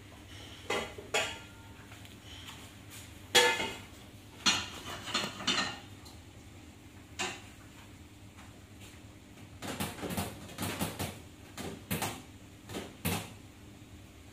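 Metal pots and pans clanking and knocking on a gas range, irregular strikes with the loudest about three seconds in and a quick run of clanks near the end, over a steady low hum.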